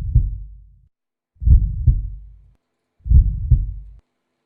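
Heartbeat sound effect: low, slow lub-dub double thumps, three beats about a second and a half apart.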